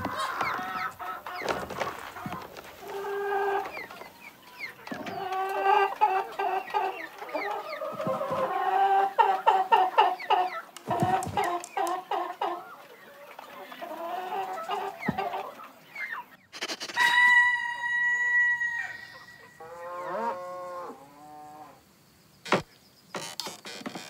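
Hens clucking in many short, overlapping bursts. Later comes one long held call, then a run of short falling calls and a few sharp knocks near the end.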